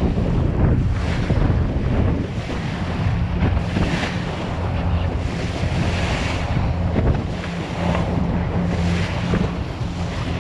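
Fishing boat running on the water: a steady low engine drone under the rush of water and spray against the hull, with wind buffeting the microphone.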